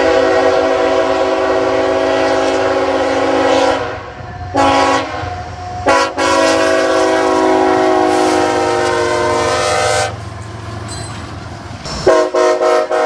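CSX locomotive air horn with several tones at once, blowing a long blast, a short one, then another long blast over the low rumble of the passing train. It ends with a few quick short blasts near the end.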